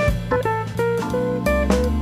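Instrumental background music: short plucked guitar notes over a steady bass line, with occasional drum hits.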